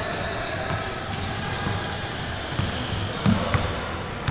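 Basketball bouncing on a hardwood gym court, with two heavier thumps about three seconds in.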